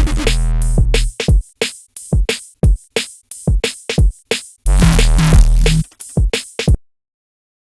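Electronic bass music: short synth bass stabs layered with white noise, played in a triplet rhythm. Two longer held low bass notes come in, one at the start and one about two-thirds of the way in. The music cuts off suddenly a little before the end.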